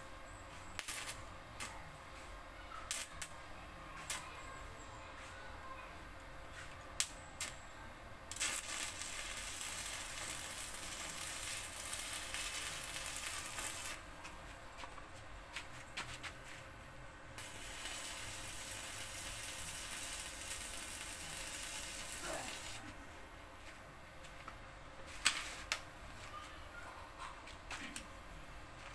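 Stick arc welding on a tricycle sidecar's steel frame with a small inverter welder: two runs of steady crackling hiss, each about five seconds long, with scattered sharp clicks and taps before, between and after them.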